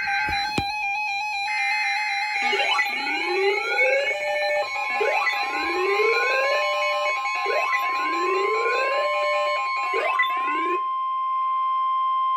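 Alert-tone sequence. Repeated rising siren-like sweeps, about every two and a half seconds, play over electronic music and stop about eleven seconds in. About five seconds in, a single steady weather-radio alarm tone near 1 kHz begins, the tone that announces a broadcast warning, and holds on alone near the end.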